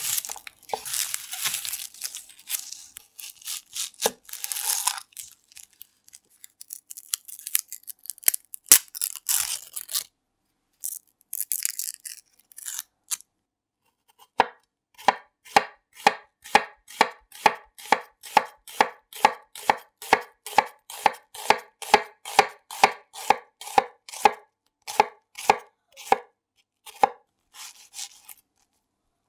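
Chef's knife on a wooden cutting board working an onion. First comes crackling and rustling of the dry, papery onion skin as the onion is halved and peeled, with scattered knife clicks. About halfway in, a steady run of knife strokes slicing through the onion into the board begins, about two or three a second, growing sparser near the end.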